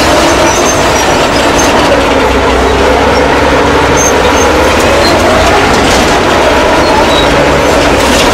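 Caterpillar D7F crawler bulldozer on the move: its diesel engine running and its steel tracks rolling, a loud, steady mechanical din.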